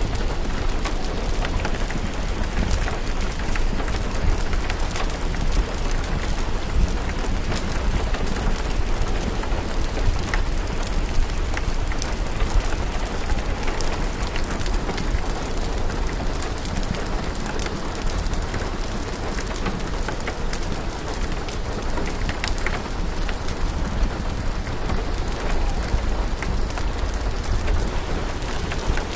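Steady rain with the irregular pops and crackles of a fireplace fire scattered through it, over a low rumble.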